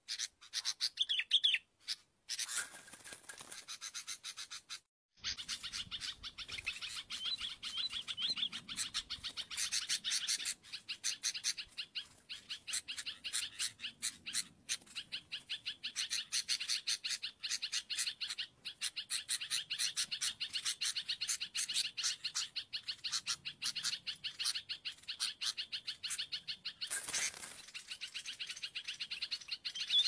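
Sooty-headed bulbuls chirping rapidly and continuously, with short breaks about two and five seconds in.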